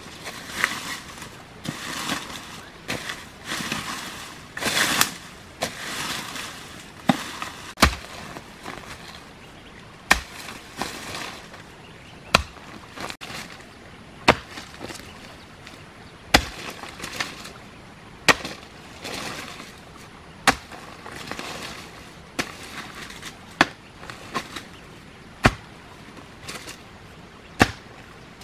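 A hoe chopping into soil, one sharp strike about every two seconds, with scraping of earth and debris between strikes that is heaviest in the first few seconds.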